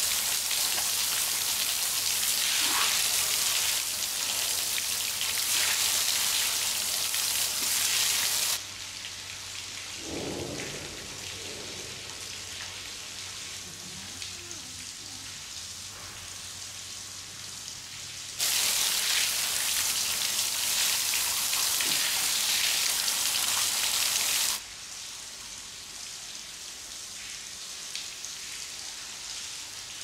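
Running shower water spraying down in a steady hiss. It cuts out abruptly about a third of the way in, leaving a much quieter background, comes back just as suddenly a little past the middle, and cuts out again about three-quarters through.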